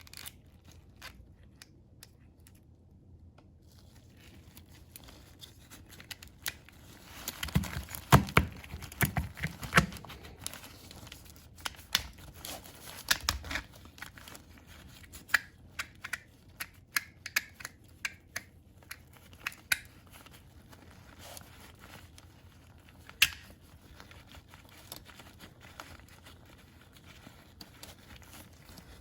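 Hands handling small oil filter parts: irregular clicks, taps and crinkling, with a cluster of louder knocks about eight to ten seconds in.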